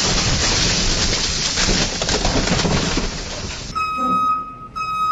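Loud, steady rushing noise that cuts off abruptly, then a box truck's reversing alarm gives two long, high beeps as the truck backs up.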